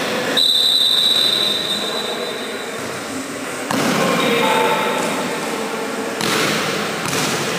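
A referee's whistle blows one long note lasting about two seconds to start a volleyball rally. The volleyball is then struck sharply a little under four seconds in and again about six seconds in.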